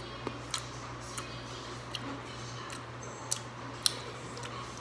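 A few soft, irregular clicks and ticks from chewing a Skittles candy, over a steady low hum.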